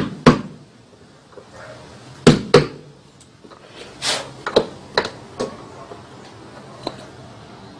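A new bearing being tapped into its seat with a piece of wood: two pairs of sharp knocks about two seconds apart, then a few lighter knocks and clicks as the part is handled.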